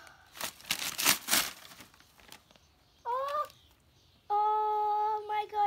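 Wrapping paper being torn and crinkled in rough bursts for about the first second and a half. Later come a short rising high-pitched call and, near the end, a louder steady high-pitched tone held for over a second.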